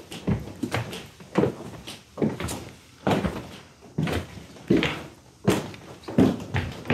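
Footsteps walking at a steady pace on a hard floor, one distinct step about every three-quarters of a second.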